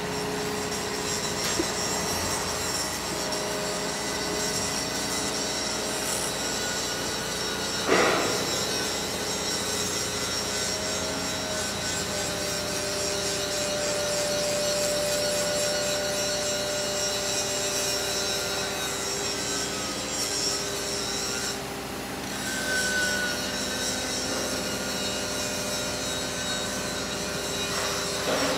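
Heavy crane machinery running: a steady mechanical drone with several held whining tones, and a single loud clank about eight seconds in.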